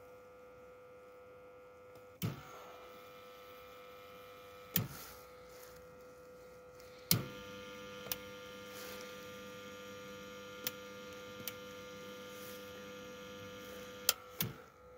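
BlueWeld Imperial 220 Start battery charger-starter humming while it charges a flat truck battery, with sharp clicks as its front-panel switches are flipped. After a click about halfway through, the hum gets louder and fuller as the setting is changed.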